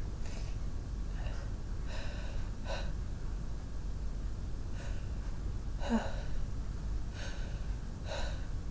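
A person's short sniffs and sharp in-breaths through a sensitive nose, about eight of them spread over several seconds, faint, over a steady low hum.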